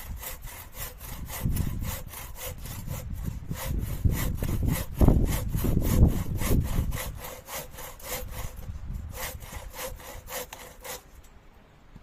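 Hand saw cutting wood with quick, even strokes, about four to five a second, which stop near the end. Gusty wind rumbles on the microphone underneath.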